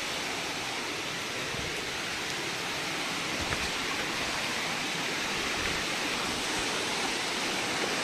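Waterfall and rocky stream rushing, a steady hiss of falling and flowing water.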